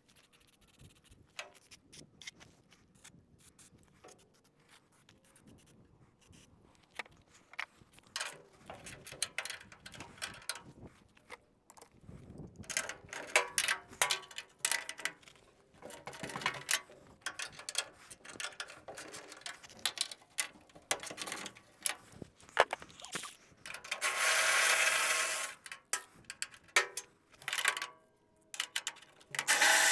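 Hand ratchet wrench clicking in short runs as bolts are backed out, with scattered clinks of tools and metal. About 24 seconds in, a steady rushing sound lasts about two seconds.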